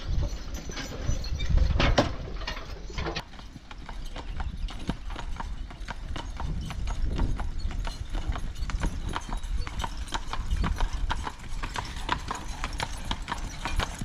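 A low rumble for the first few seconds, then the hooves of a team of draft horses clip-clopping at a steady walk on a paved road, several hoof strikes a second.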